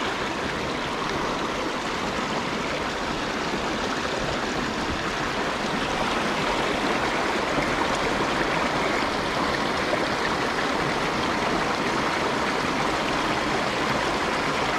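Small creek's water running, a steady even rush that gets a little louder about halfway through.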